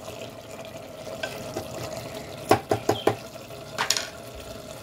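A spoon stirring wet mutton curry and tamarind leaves in a pressure cooker: soft wet stirring, with a few sharp knocks of the spoon against the pot about two and a half to three seconds in and once more near four seconds. A steady hum runs underneath.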